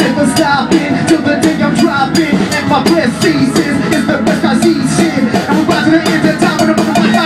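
Live band playing a hip hop groove, with a drum kit keeping a steady, busy beat.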